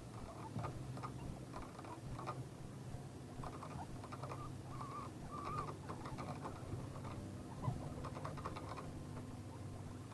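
Guinea pigs shuffling and nibbling in dry hay: a scatter of small rustles and clicks, with two short high squeaks about five seconds in, over a steady low hum.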